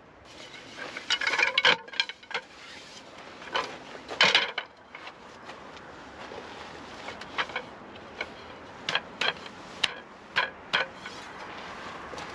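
Irregular short knocks and clatters with some rustling over a steady background noise, the loudest clusters about a second and about four seconds in, then scattered single clicks.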